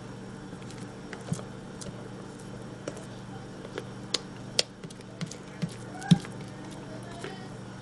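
Rubber spatula scraping thick, sticky marshmallow out of a stand mixer's metal bowl: scattered light taps and knocks against the bowl, the loudest about six seconds in, over a steady low hum.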